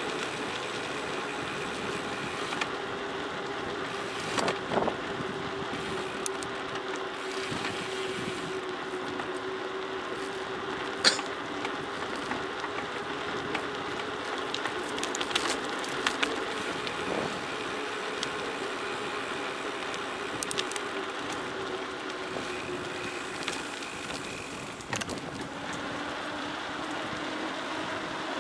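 Bicycle rolling fast downhill on a gravel forest road: steady tyre and wind noise with a low hum, broken by scattered clicks and knocks of gravel and rattling bike parts.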